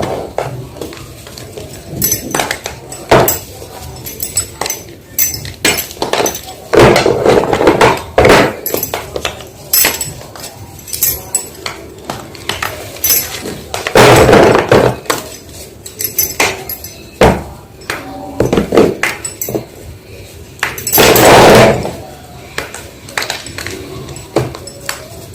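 Gym chalk being crunched and crushed: a run of sharp crisp snaps and crackles, with three longer, louder crumbling crushes spread evenly through.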